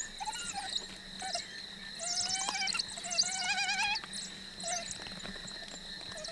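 African wild dogs feeding on a fresh impala lamb kill, giving a string of short, wavering, high twittering calls, busiest in the middle, as they jostle over the carcass. A steady high insect drone runs underneath.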